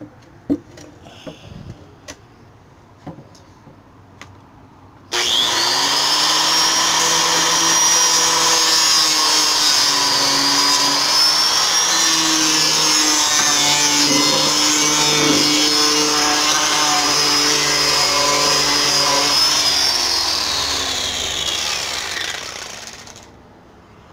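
A few light handling knocks, then an electric power drill starts abruptly about five seconds in and runs steadily with a high whine. Near the end it winds down, its pitch falling as it fades.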